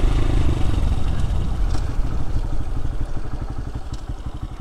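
Honda Grom's single-cylinder engine putting along at low revs through a Two Brothers Racing S1R carbon full exhaust with its baffle fitted, the even exhaust pulses getting steadily quieter as the bike rolls off. The rider finds this low-rev exhaust sound harsh and unpleasant.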